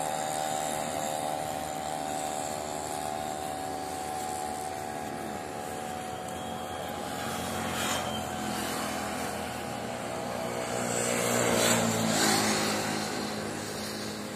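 Highway traffic going by, with a steady engine hum early on. A vehicle passes close about eleven to twelve seconds in, swelling in loudness and then dropping in pitch as it goes by.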